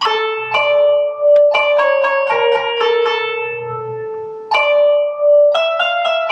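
Mus2 notation software playing back a melody with a synthesized plucked-string sound: a run of single notes in a middle register, each struck sharply and ringing away. The playback sounds at the written pitch (Mansur ahenk), tuned to give the same notes as a piano.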